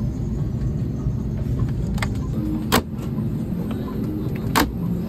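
Steady low rumble inside an airliner cabin during boarding, with two sharp knocks of overhead luggage bin doors being shut, the first near the middle and the second about two seconds later.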